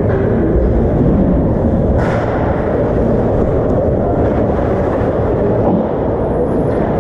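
Ice hockey game noise in a rink: a loud, steady rumble with a sharp knock about two seconds in.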